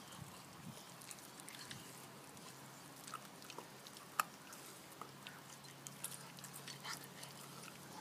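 Six-month-old puppy gnawing a bone, with irregular faint crunches and clicks of teeth on the chew, and one sharper crack about four seconds in.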